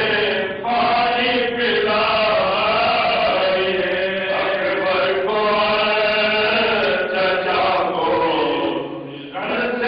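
Men's voices chanting a marsiya, the Urdu elegy, unaccompanied and melodic with long held notes. The voices break off briefly for a breath near the end before the next line begins.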